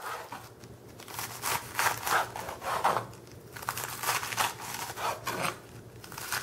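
Large kitchen knife slicing crisp iceberg lettuce into thin strips, each stroke a crunchy cut ending on a plastic cutting board. The cuts come in a quick run, about two or three a second, with a short pause a little past halfway.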